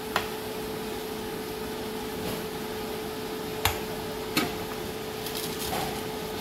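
Egg curry simmering in a pan, a steady hiss of bubbling gravy over a constant hum, with three sharp clicks scattered through.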